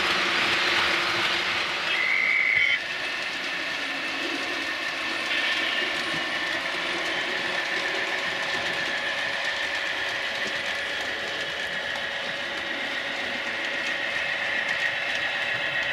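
Model trains running on a layout: wheels clattering over the rail joints under a steady electronic engine drone from the locomotives' DCC sound decoders. A short high tone sounds about two seconds in, and the level drops a little just after it.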